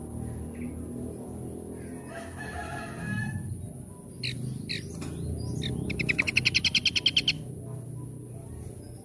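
Small wild songbirds calling: a short chattering call, then several sharp rising chirps, then a loud rapid trill of about a dozen notes a second lasting just over a second. A steady high hiss and a low rumble run underneath.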